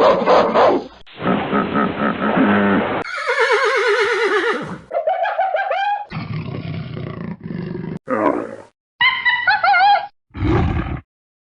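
A string of different mammal calls spliced one after another, each cutting off abruptly: roars and growls alongside wavering pitched cries.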